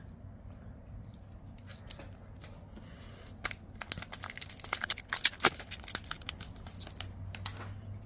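A foil-wrapped trading card pack being torn open by hand: a few faint handling clicks, then a run of sharp crinkling and tearing crackles starting about three and a half seconds in, loudest about two seconds later.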